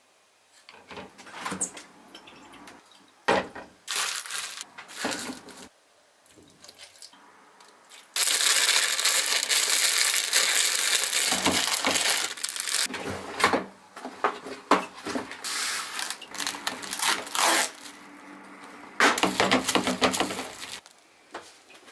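Food being prepared by hand: a few clicks and snips of kitchen scissors, then a long spell of crinkling plastic packaging as the noodles are unwrapped. Near the end, cling film is pulled off the roll and torn to cover the bowl.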